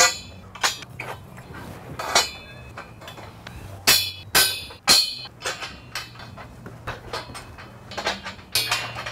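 Hammer blows on steel scaffold tubes and couplers, sharp metallic strikes that ring briefly, coming irregularly with a quicker run of blows about four to five seconds in.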